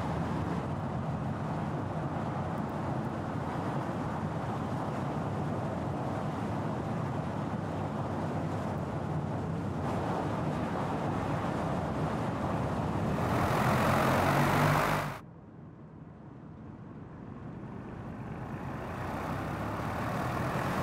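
Mercedes-AMG GT 63 S E Performance's twin-turbo V8 running as the car drives at road speed, with tyre and road noise. The sound swells to its loudest about fourteen seconds in, cuts off suddenly, then builds again as the car comes closer.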